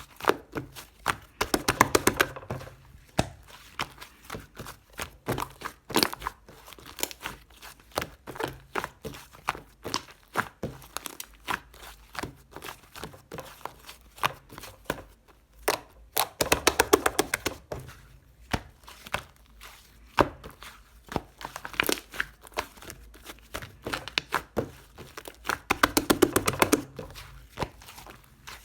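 White slime being squeezed and worked by hand, giving many sharp clicks and pops of trapped air. It breaks into dense runs of crackling about two seconds in, around seventeen seconds in, and near the end.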